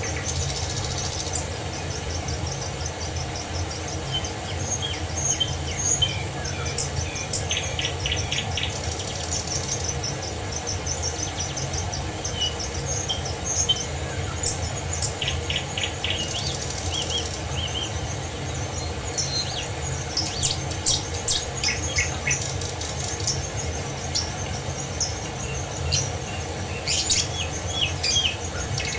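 Several songbirds chirping and trilling in quick, scattered phrases over the steady rush of a waterfall.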